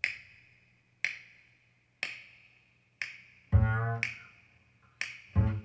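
Jazz recording played back through a small 71A valve amplifier: sharp finger snaps, one a second, keep the beat, and a plucked double bass joins about three and a half seconds in.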